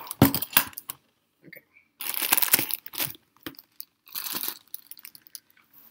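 Clear plastic bag crinkling as a bagged microphone-stand part is handled, in two bursts, about two seconds in and again about four seconds in. A few sharp knocks come first.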